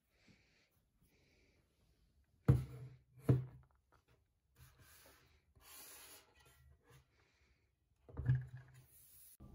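Handling of a plastic tumbler with a lid and straw at a desk: two sharp knocks about a second apart, faint rubbing and shuffling, then another knock near the end as it is set down on a cork coaster.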